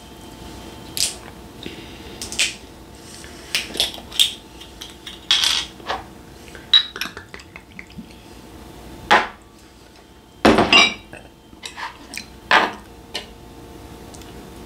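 A string of separate sharp clinks and knocks of glass and tableware: a green glass soju bottle handled and poured into a shot glass, and metal chopsticks tapping on dishes. The loudest is a short rattling clatter a little past the middle.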